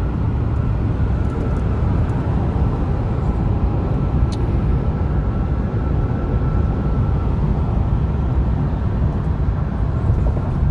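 Steady low rumble of car road and engine noise heard from inside the cabin while driving, with a faint steady whine and a single small click about four seconds in.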